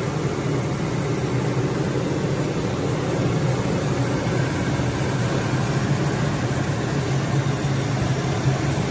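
The 3.5-litre D-4S V6 of a 2016 Toyota Tacoma with over 200,000 miles, running at a steady idle with the hood open.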